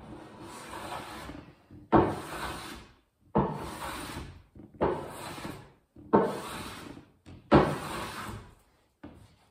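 Hand plane taking repeated strokes along a plywood edge, about one every second and a half, each stroke starting sharply and tailing off.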